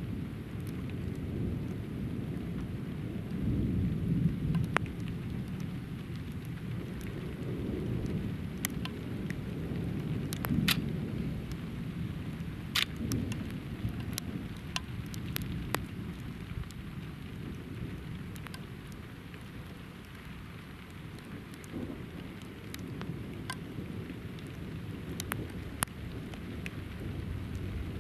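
Thunder rumbling in several slow swells under steady rain, with scattered sharp ticks of raindrops striking close by.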